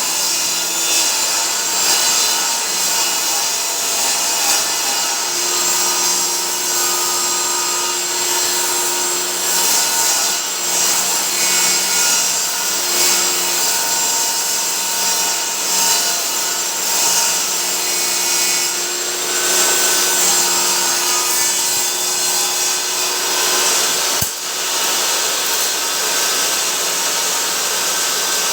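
Power saw running and cutting wood, a steady motor whine under the noise of the blade in the wood, with a sharp click near the end.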